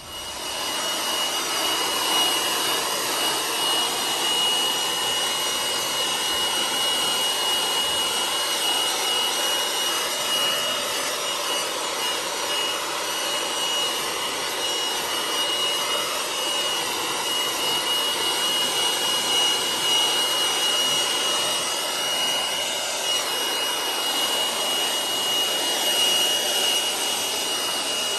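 Battery-powered handheld blower running steadily at full speed, a loud rush of air with a steady high whine, its nozzle blowing into a wet Alaskan malamute's thick coat to dry it.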